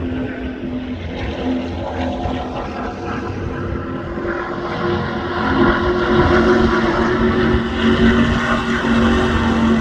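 Vehicle engine running steadily at track speed with road and wind noise, the engine drone getting louder about five seconds in.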